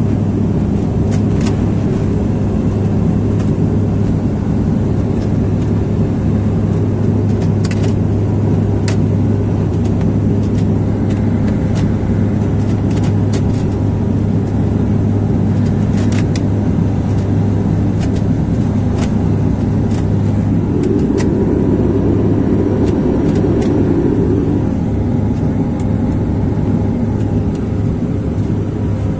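Turboprop airliner's engines and propellers droning steadily, heard from inside the passenger cabin during the descent to land, with a steady hum tone running through the noise. The drone swells a little for a few seconds about two-thirds of the way through.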